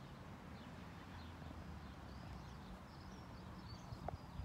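Outdoor ambience: low wind rumble on the microphone, with faint bird chirps and a couple of light clicks about four seconds in.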